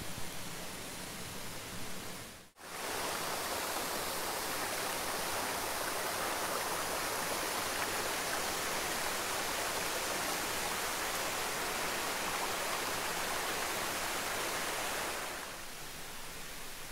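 Steady rushing of a rocky stream and small waterfall. It cuts out for a moment about two and a half seconds in, returns louder and even, then drops to a softer hiss near the end.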